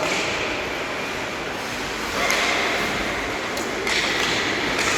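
Ice hockey play on a rink: skate blades scraping across the ice in two bursts, with sharp clacks of stick or puck near the end.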